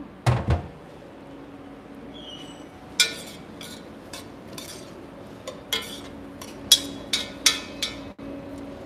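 A utensil stirring diced onions and carrots in a white enameled Dutch oven: a dull thump just after the start, then sharp clinks against the pot, several of them close together in the second half, over a steady low hum.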